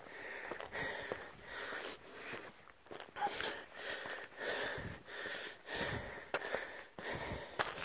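A hiker breathing hard while climbing, about a breath a second.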